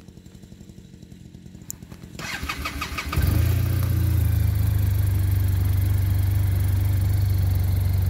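Arctic Cat Norseman snowmobile engine being started with the electric starter: it cranks briefly, catches about three seconds in, and settles into a steady idle. It idles with its usual shake but no rattle from the cowling.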